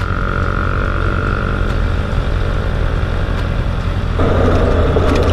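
Honda CB650F's inline-four engine idling with a steady low hum. About four seconds in, a louder rush of noise joins as traffic starts to move off.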